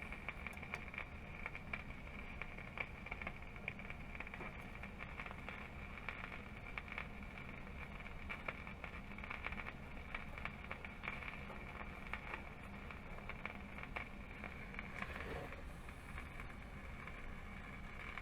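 Philco 53-956 tube radio's speaker putting out a steady low hum with a constant fine crackling and popping, the set powered up but still receiving nothing.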